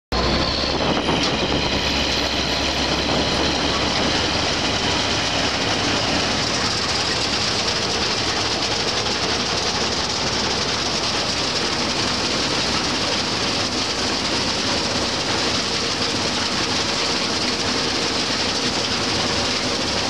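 Combine harvester running steadily while cutting barley, heard close to the header: a low engine hum under dense, even mechanical noise from the turning reel and cutter bar.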